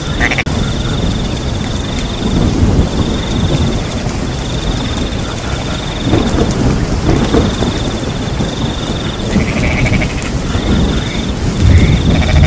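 Rain falling with a rumble of thunder underneath, while a cricket trills in repeated stretches of a second or two. A few frog calls come in near the end.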